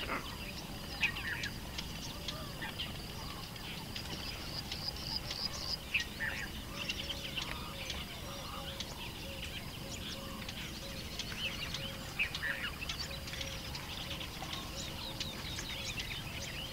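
Several birds chirping and trilling in quick, overlapping calls, with a softer low call repeating in the background during the second half.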